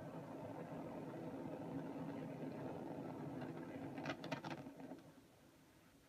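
Antares rocket's launch rumble and explosion heard through a television speaker: a steady rumble with a few sharp cracks about four seconds in, falling away to quiet about five seconds in.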